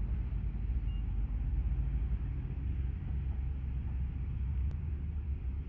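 Steady low rumble, with a faint short high beep about a second in.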